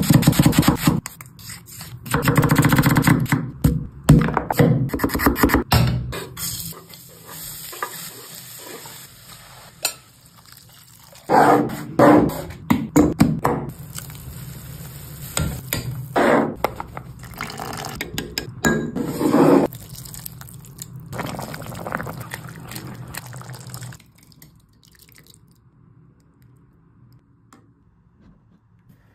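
Background music, fading to faint room noise for the last few seconds.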